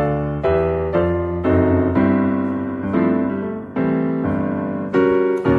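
Background piano music, with a new chord struck about every half second.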